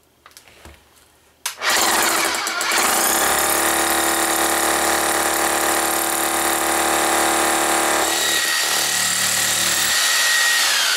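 Corded hammer drill with a long masonry bit boring into a concrete floor. It starts about a second and a half in and runs steadily, its sound thinning about eight seconds in, then begins to wind down with a falling whine at the very end.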